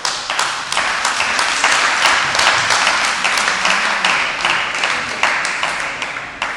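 Spectators clapping and applauding in a sports hall at the end of a judo bout, swelling and then dying away near the end.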